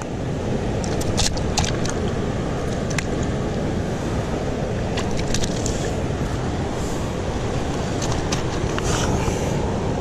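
Steady rush of the flowing river and wind on the microphone, with scattered sharp clicks and taps from the landed smallmouth bass and a hand moving on the loose stones.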